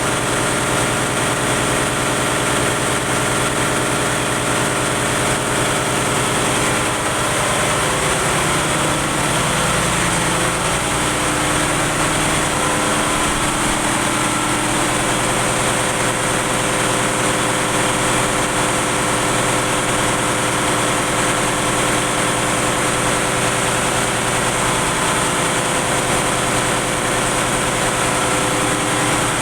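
Ship's engine-room machinery running: a loud, steady diesel drone made of many held tones. Some of the tones shift in pitch for a few seconds about a quarter of the way through, then settle again.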